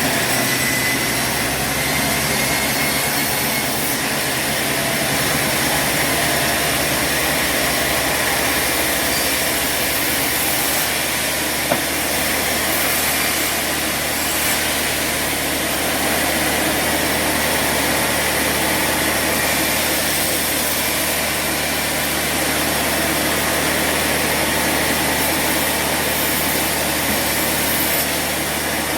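Sawmill machinery running steadily, an engine hum under the noise of a saw working through timber. There is one sharp click about twelve seconds in.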